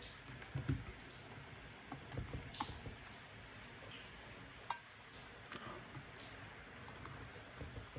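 Faint, irregular key taps and clicks on a Mid 2012 MacBook Pro's keyboard, with one sharper click about halfway through.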